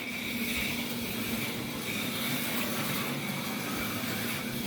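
HO-scale slot car running laps on a plastic track, its small electric motor making a steady whine over a hiss of wheels and pickups on the rails.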